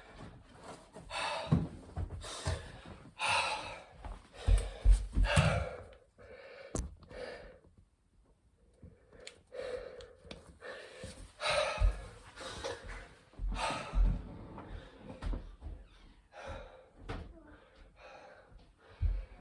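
A man breathing hard in loud gasping breaths, winded from a set of burpees, with a few dull thumps.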